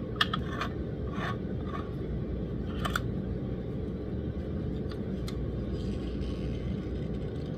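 Brass garden hose adapter being twisted onto the threads of a plastic pump-sprayer handle: a few light clicks and scrapes, most in the first second, over a steady low hum.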